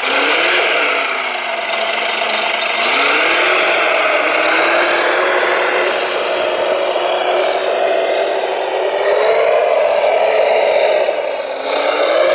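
Radio-controlled model vehicle's drive motor running with a whirring hum. Its pitch falls about a second in, rises again near three seconds, and shifts up and down as the throttle changes.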